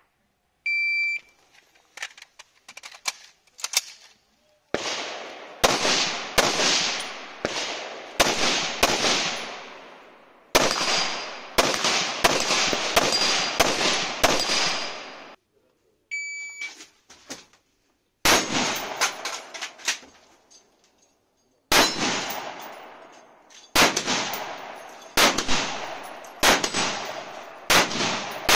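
A shot timer's start beep, then strings of rapid semi-automatic shots from a .223 AR-15-style competition rifle, the Savage Arms MSR 15 Competition, fired in quick clusters with short pauses between. A second start beep about halfway through is followed by more strings of fast shots.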